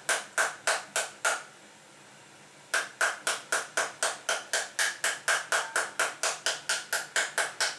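Metal spoon rapping the skin of a half pomegranate held cut side down in the hand, knocking the seeds out: sharp knocks with a short ring, about three or four a second. The knocking stops for about a second and a half soon after the start, then picks up again near three seconds in.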